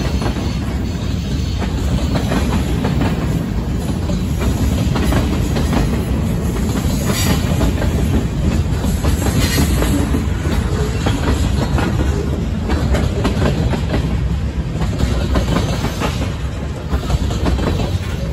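Freight cars rolling past at close range: a steady rumble of steel wheels on rail, with rapid clickety-clack as the wheels pass over rail joints.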